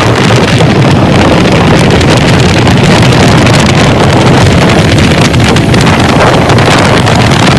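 Loud, steady rushing noise with wind buffeting the microphone, cutting off suddenly at the end.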